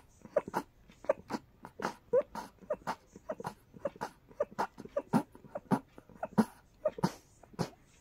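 A person sneezing in a rapid string of short, sharp sneezes, about three a second, set off by a very tickly nose.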